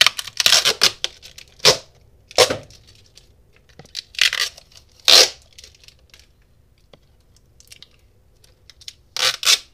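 Tape wrapping on a LiFePO4 battery pack being cut with a sharp pointed tool, heard as about six short tearing sounds, the loudest about five seconds in.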